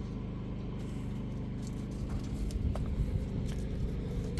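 An engine running steadily with an even low hum, with a few faint knocks near the middle.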